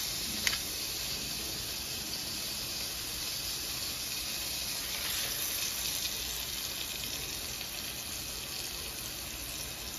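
Turkey burger patties sizzling steadily in olive oil and butter in a frying pan, with one short click about half a second in.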